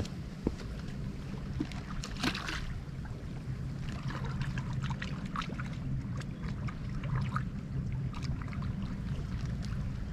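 Steady wind rumble on the microphone over moving water along a rocky shore, with a few small splashes and clicks as a largemouth bass is let go by hand in the shallows.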